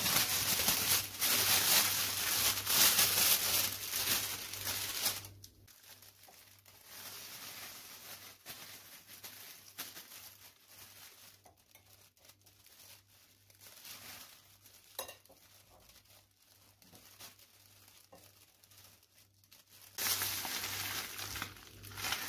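Plastic oven bag crinkling and rustling as it is handled with a whole chicken and vegetables inside. It is loud for the first five seconds, drops to faint scattered rustles, and turns loud again near the end.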